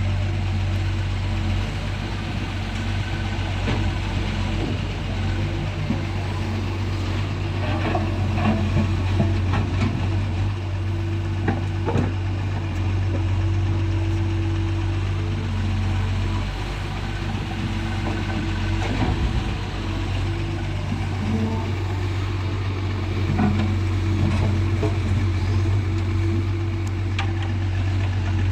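Doosan DX140 excavator's diesel engine running steadily while it works, with scattered knocks and clatter as it digs and loads.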